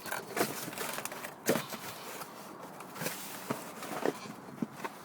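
Light clicks and knocks from clutch parts being handled, about a dozen short irregular taps.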